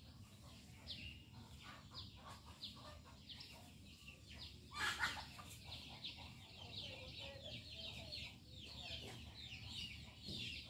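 Birds chirping: many short, high, downward-sliding notes in quick succession, with one louder call about five seconds in.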